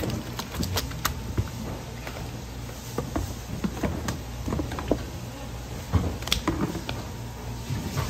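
Irregular knocks, taps and slaps on a wooden cutting board as live grey mullet are cut at the head with a kitchen knife and handled, the knife set down and the fish laid out, over a low steady hum.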